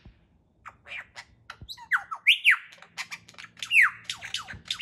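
Superb lyrebird singing: a quick, varied run of sharp clicks and loud whistled notes that sweep downward in pitch, starting about half a second in.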